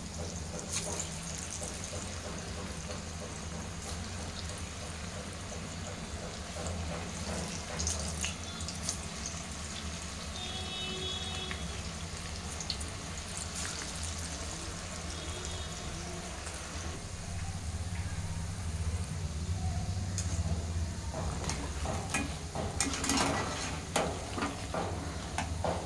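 Moong dal fritters deep-frying in hot oil in a steel kadai: a steady sizzle over a low hum. Near the end, a wire strainer stirring them makes a run of clinks and scrapes.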